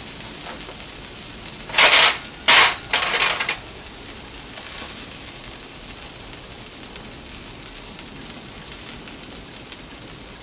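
Chopped onion and peppers sizzling steadily on a Blackstone flat-top griddle. A cluster of three short, sharp noises comes about two to three and a half seconds in.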